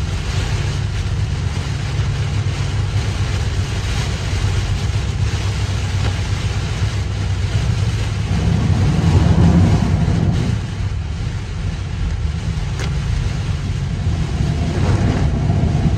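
Heavy rain beating on a car's roof and windshield, heard inside the moving car, over a steady low rumble of road and engine noise. The rumble swells louder for a couple of seconds about halfway through.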